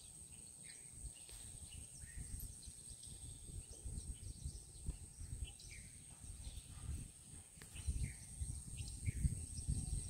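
Outdoor rural ambience: wind buffeting the microphone in uneven low gusts, with short scattered bird chirps and a steady high-pitched insect whine.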